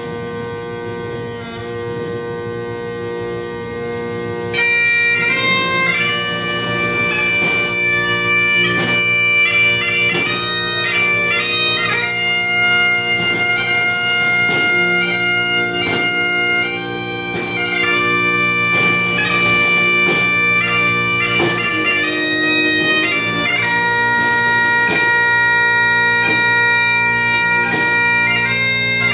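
Highland bagpipes: the drones hum steadily, then about four and a half seconds in the chanter strikes in and a slow tune is played over them.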